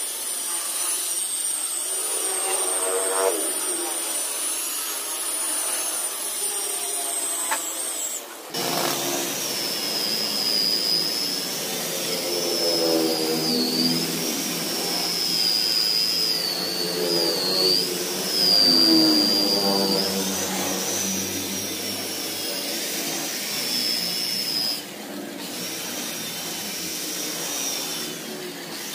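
Electric rotary car polisher running with a steady high whine, its pitch wavering as the foam pad is worked over the car's painted door panel. The whine jumps to a lower pitch about eight seconds in and carries on.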